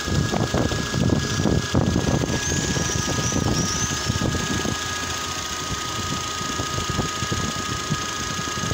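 Freshly rebuilt Renault Energy four-cylinder petrol engine idling steadily on its first runs, with a faint steady whine over the rumble.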